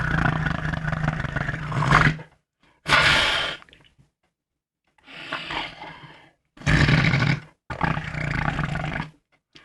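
A person making imitation fart sounds, a run of five buzzing, blown rasps: the first about two seconds long, the rest about a second each with short gaps between.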